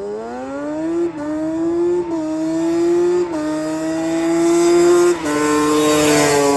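Yamaha Banshee 350 two-stroke twin engine accelerating hard through the gears. The pitch climbs steadily and drops back at each of about four upshifts.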